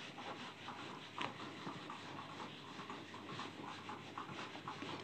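Whiteboard duster rubbing across the board as the writing is wiped off: faint, irregular scrubbing strokes.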